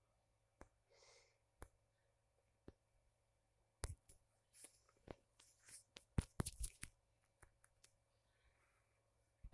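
Near silence broken by scattered faint clicks and taps, with a busier run of them from about four to seven seconds in.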